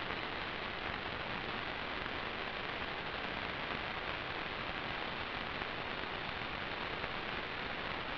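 Steady, even hiss of static from the analog FPV video link's audio channel, with no motor or propeller tone in it.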